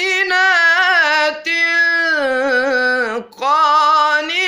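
Unaccompanied solo male Quran recitation in melodic tajweed style: one voice holding and ornamenting long wavering notes on the word "mu'minat". It breaks for a short breath about three seconds in, then takes up the next long note.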